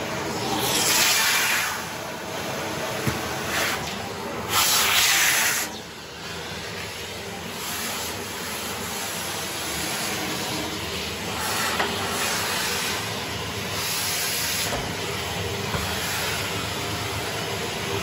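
Upright vacuum cleaner running through its hose and crevice tool, a steady suction hiss. The rush of air gets louder twice, about a second in and again around five seconds, as the tool works along the carpet edge, with a few faint clicks.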